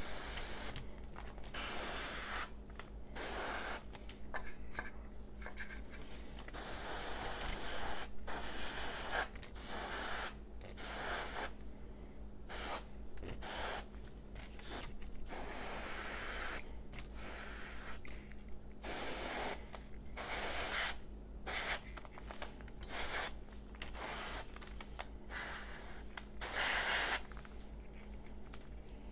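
Gravity-feed airbrush spraying paint onto plastic model parts in short, repeated bursts of hiss. Most bursts last about a second, and a couple of longer passes run two seconds or so.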